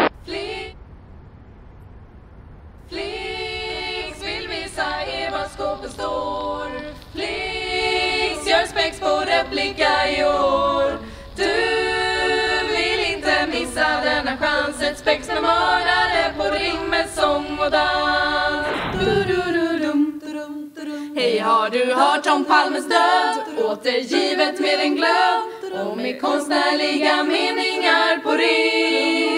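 Group of women singing a cappella in harmony, starting about three seconds in after a low background hum.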